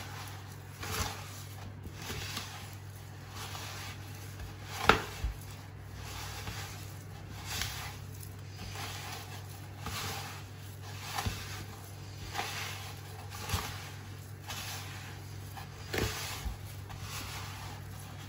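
A hand kneading butter into granulated sugar in a plastic bowl: gritty squishing and rubbing strokes, roughly one a second, the loudest about five seconds in.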